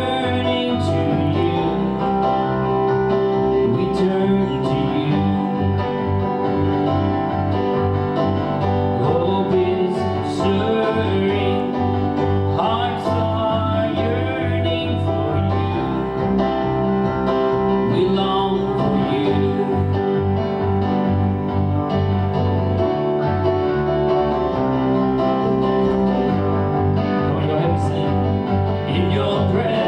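Country-style music with guitar and a singing voice over a steady bass line.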